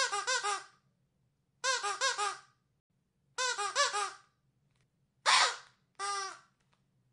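A dog's squeaky toy being squeezed in five bursts. The first three bursts are quick runs of three or four short squeaks, each run about a second and a half apart. The last two are single, longer squeaks close together near the end.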